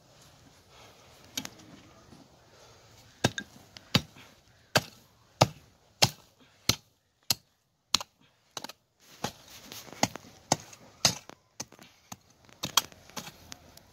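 A short-handled hoe chopping into dry, stony earth to dig open a hole: a run of sharp strikes, about one every 0.7 seconds, turning more irregular in the second half.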